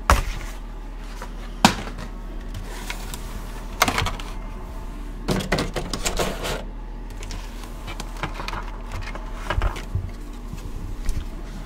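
Hands handling a clear plastic blister tray and its cards and booster packs: scattered sharp plastic clicks and crackles, with a denser stretch of crinkling and rustling about five to six and a half seconds in.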